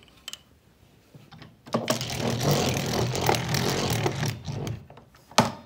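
Handling noise of wood on a wooden workbench: a rattly scraping that lasts about three seconds, then a single sharp knock near the end.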